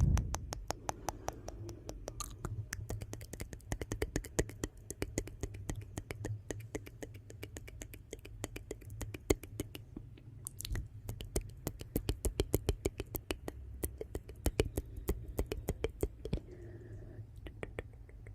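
Wood fire in a fireplace crackling and popping: a dense run of sharp, irregular crackles over a steady low rumble of the flames.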